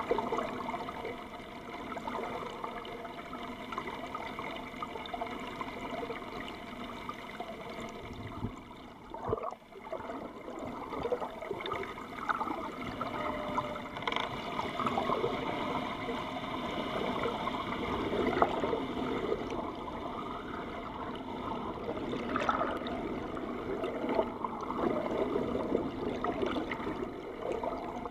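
Water rushing and gurgling past an underwater camera on a moving boat's hull, with a steady hum underneath and a brief lull about nine seconds in.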